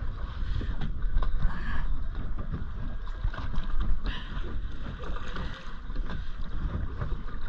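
Wind buffeting the microphone in a steady low rumble, with scattered light clicks and knocks from a spinning rod and reel being handled and cranked.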